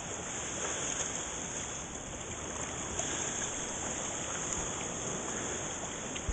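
Shallow seawater sloshing and lapping as someone wades out through small, calm waves, with a steady high hiss.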